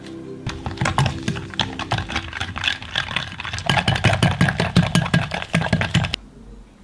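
Wire whisk beating egg yolks and sugar in a tilted glass bowl: a fast, continuous rattle of the wires against the glass that stops abruptly shortly before the end.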